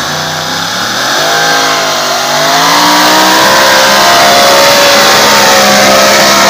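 Engine of a modified tractor-pulling tractor, revving hard as it drags the weight sled down the track. Its pitch climbs and wavers over the first couple of seconds, then stays high and loud at full revs.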